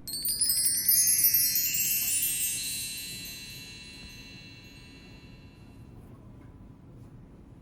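A cascade of bright, high chime tones, like a wind chime or mark tree, struck together and ringing out, fading away over about five seconds.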